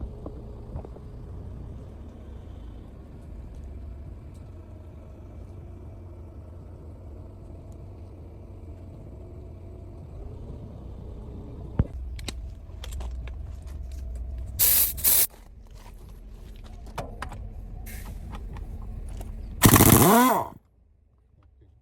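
A steady low mechanical rumble with scattered clicks and knocks. Short loud bursts of hiss come about two-thirds of the way through, and a longer, louder burst near the end cuts off abruptly.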